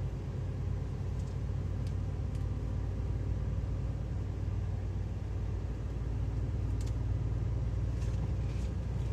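Steady low rumble of a moving lorry's diesel engine and road noise, heard inside the cab, with a few faint scattered clicks.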